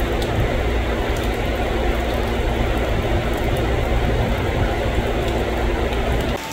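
Heavy rain pouring steadily, mixed with the deep rumble of a JR 205 electric commuter train pulling away from the station; it cuts off suddenly near the end.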